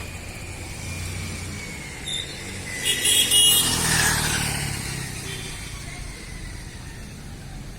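A motor vehicle passing close by on the street, swelling about three seconds in and fading away over the next few seconds.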